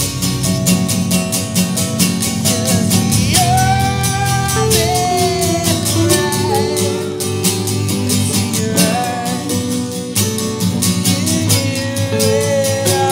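A band playing a song with guitar, bass and drums on a steady beat. A lead vocal comes in about three seconds in and returns twice later.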